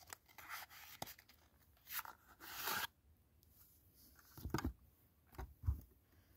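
Faint rustling and scraping of a Pokémon card box's packaging being handled and opened, then a few soft knocks in the second half.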